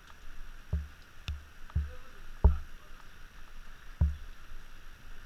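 A few dull thumps and one sharp click as a scooter's seat and top box are handled, the knocks carrying through the camera, over a steady faint hiss of rain.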